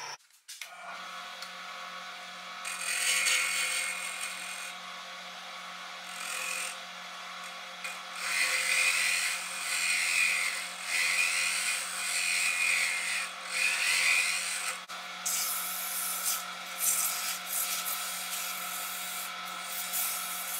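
Mini bench lathe running with a steady motor hum while a hand-held turning chisel cuts the spinning blank in repeated strokes, mostly about 3 s in and from about 8 to 14 s. From about 15 s in, sandpaper held against the spinning piece scratches and hisses.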